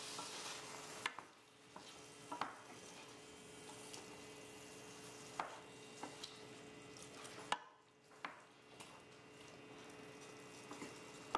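Wooden spoon stirring chickpeas and tomato sauce in a stainless steel sauté pan, with scattered soft knocks of the spoon against the pan over a quiet simmering sizzle.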